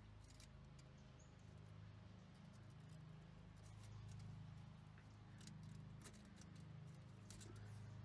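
Near silence: a faint low hum with a few faint scattered ticks.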